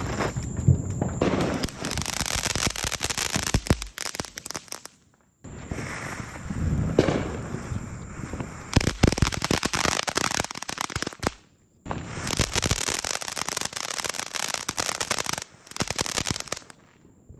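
Consumer fireworks crackling and popping in dense rapid strings. The sound cuts out briefly three times.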